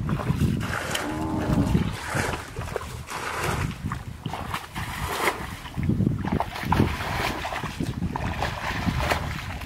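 Muddy water sloshing and splashing as a hoe is dragged through shallow mud in repeated strokes.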